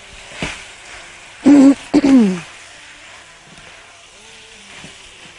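Beef strips and sliced onion sizzling steadily on a hot grill pan as they are stirred, with a spatula clack about half a second in. The loudest sounds are two short vocal sounds about a second and a half and two seconds in, the second sliding down in pitch.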